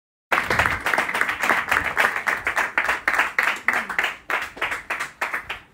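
Audience clapping and applauding, dense rapid claps that start abruptly and thin out toward the end.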